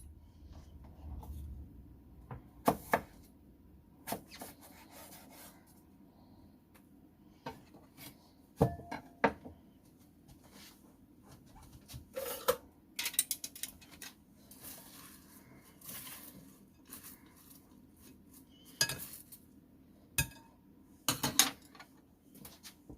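Kitchen utensils and dishes knocking and clinking, in irregular scattered strokes.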